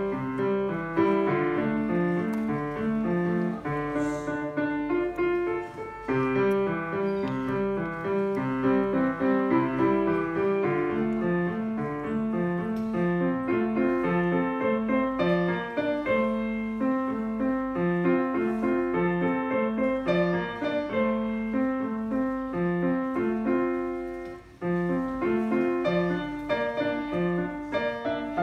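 A Steinway grand piano played solo, a melody over a steady, evenly paced bass line, with a brief break near the end before the playing resumes.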